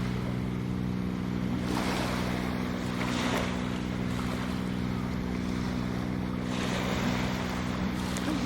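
Surf washing on the beach with wind, swelling twice, over a steady low engine hum like a boat motor offshore.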